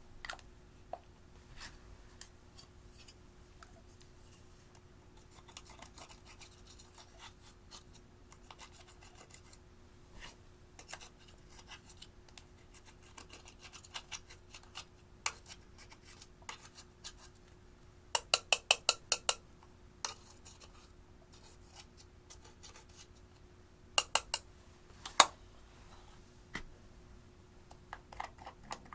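Fine scratching and scraping of a hard tool on something small and hard, with scattered sharp clicks. A quick run of about eight clicks comes a little past the middle, and a few louder taps come later.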